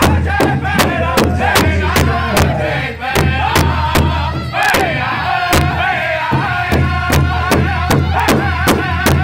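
A powwow drum group singing a song in high, strained voices while beating a large hide drum together with drumsticks in a steady beat of about three strokes a second.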